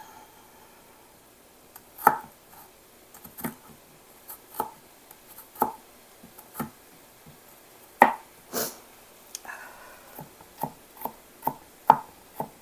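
A santoku-style knife chopping garlic cloves on a plastic cutting board, making irregular sharp knocks of the blade on the board. A few strokes, about 2, 8 and 12 seconds in, are louder than the rest.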